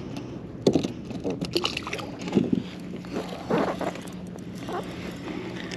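Scattered knocks, clicks and rustles of handling on a fishing kayak, with faint water and wind noise. A steady low hum comes in about two seconds in.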